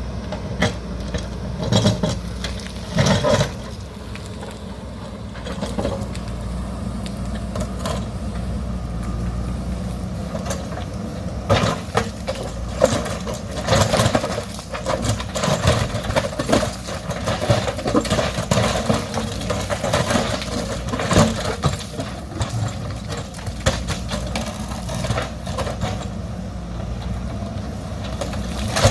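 JCB backhoe loader's diesel engine running steadily, with repeated knocks and scrapes as the bucket digs into rock and stony soil, busiest in the middle stretch.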